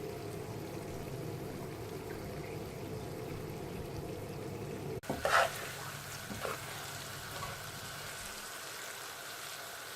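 Keema aloo (mince and potato curry) sizzling in a pan on a high flame as its last water cooks off. The sound breaks off sharply about halfway, two short clatters follow, and then a quieter sizzle carries on.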